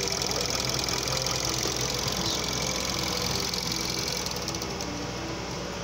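2010 Volkswagen Polo TSI petrol engine idling steadily while warm, at about 660 rpm, with a fast, even ticking over the idle.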